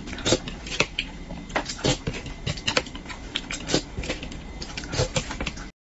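Close-miked chewing and lip smacking while eating spoonfuls of spicy braised fish, irregular wet clicks about twice a second. The sound cuts off suddenly near the end.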